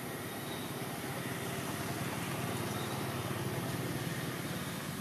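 A steady low engine hum under a constant outdoor background noise.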